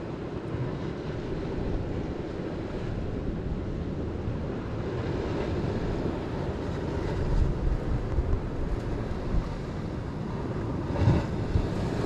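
Steady wind buffeting the microphone over the wash of sea waves on the shore, swelling briefly near the end.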